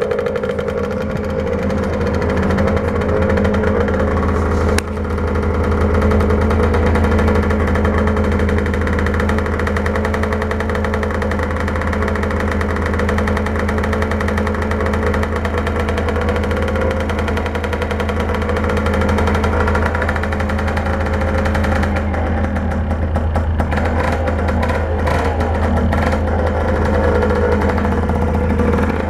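1978 Suzuki PE 175's single-cylinder two-stroke engine idling steadily while it warms up after a cold start, with a sharp click about five seconds in.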